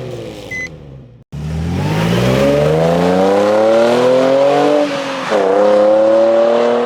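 Nissan 350Z's VQ35 V6 accelerating hard through the gears. Its pitch climbs steadily for about three seconds, drops at a gear change about five seconds in, then climbs again. The sound cuts out briefly just over a second in.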